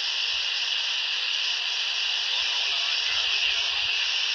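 Steady static hiss from a Quansheng UV-K5 handheld's speaker, tuned to 27.555 MHz on USB with the squelch held open on monitor: band noise with no station coming through at this moment.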